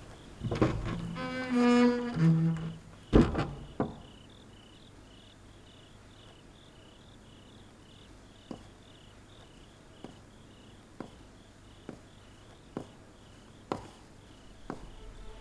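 Crickets chirping in a steady pulsing rhythm. In the first few seconds a brief low bowed-string phrase plays, followed by two sharp knocks; after that, soft single knocks come about once a second.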